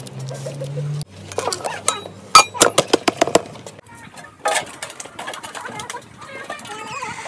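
Metal cooking pots clinking and knocking: a quick run of sharp clinks about two seconds in, and a few more a little past the middle.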